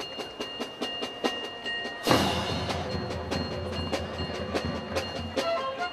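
Marching band percussion: sticks clicking a steady beat about four times a second, then a cymbal crash with a low drum rumble about two seconds in that rings on. Short melody notes begin near the end.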